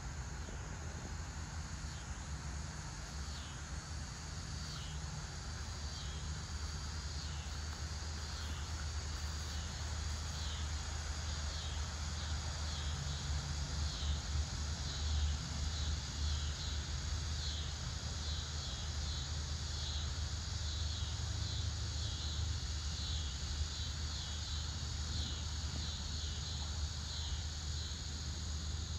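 A high chirping call repeated about once a second, each chirp falling in pitch, over a steady low hum.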